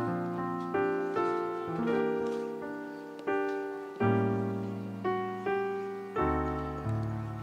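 Background piano music: chords struck about once a second, each left to fade before the next.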